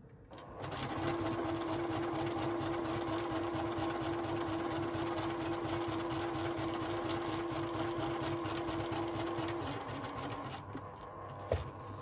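Electric domestic sewing machine stitching forward after a backstitch at the start of the seam: fast, even needle strokes over a steady motor hum, starting about half a second in. Near the end it slows and stops, followed by a single click.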